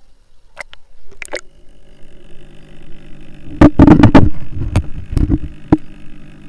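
A camera being handled and lowered into a fish pond: a few sharp knocks, then loud sloshing and splashing as it goes under the water about three and a half seconds in, followed by a few muffled knocks. A steady low hum runs underneath.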